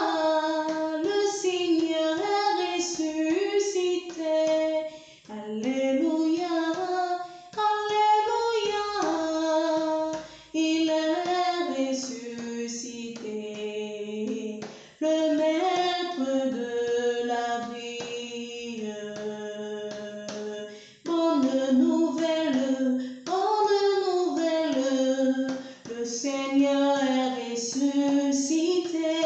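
A woman's voice singing a hymn of Christ's resurrection, in phrases broken by short pauses every few seconds.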